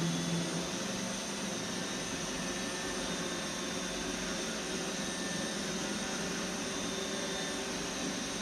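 iRobot Roomba 960 robot vacuum running steadily, an even whirring noise with no breaks.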